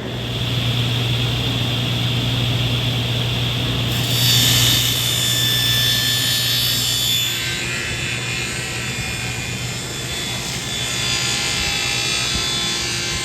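A woodworking power tool running steadily with a low hum and hiss; the sound grows fuller and brighter about four seconds in.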